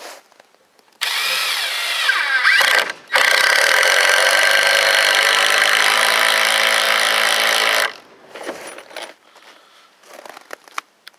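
Cordless drill driving a 4½-inch star-drive wood screw into a green treated 4x4 without pre-drilling. A short first burst of driving speeds up and slows, then after a brief pause comes about five seconds of steady loud driving that stops as the screw head sinks into the wood.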